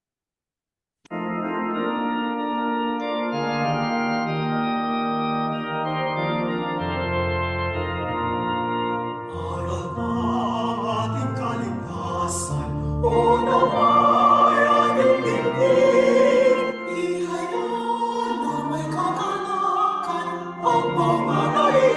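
An organ starts about a second in, playing the introduction to a Tagalog hymn in steady held chords. About nine seconds in, a group of voices joins, singing the hymn with the organ.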